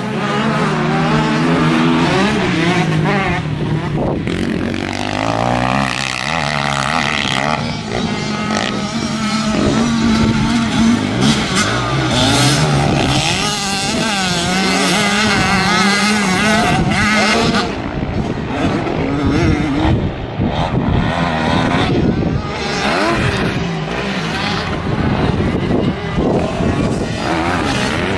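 Motocross dirt bike engines revving up and down as the bikes ride around a dirt track, with several engines overlapping at times.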